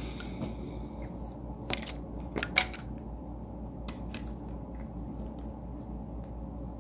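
Makeup items being handled: a few small sharp clicks and taps, the loudest about two and a half seconds in, over a steady low hum.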